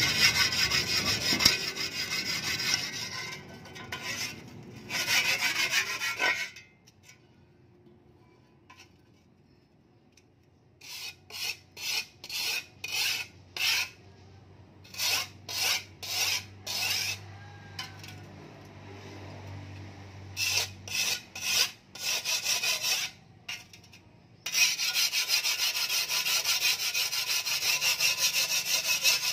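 Flat hand file rasping along the edge of a steel shovel blade, sharpening it stroke after stroke. The strokes come fast and close together at first, stop for a few seconds, return as separate strokes about one a second, then run fast and continuous again near the end.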